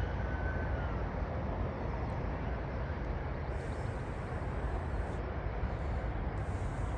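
Steady low rumble of wind and distant jet aircraft. A siren's falling wail fades out about a second in.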